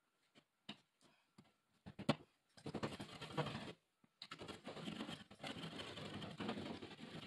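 Hand blade cutting into drywall, scratchy scraping strokes. A few light clicks come first, then a sharp tap about two seconds in, then long stretches of scraping.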